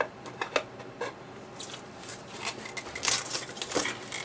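Utility knife blade slicing and scraping through plastic shrink wrap on a cardboard box, with the film crinkling. Short scratches and clicks, then a longer, louder cut about three seconds in.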